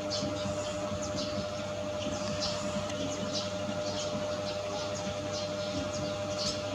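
Small birds chirping: short, high chirps several times a second over a steady hum.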